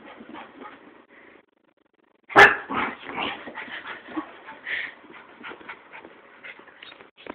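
Small dog yipping and barking in quick, short sounds while spinning after its tail. The sounds break off for about a second, then the loudest one comes about two and a half seconds in.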